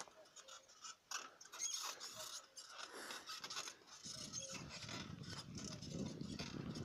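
Bicycle rolling down a gravel road: irregular clicking and rattling from the bike's parts, then from about four seconds in the rough crunch of the tyres on gravel grows louder.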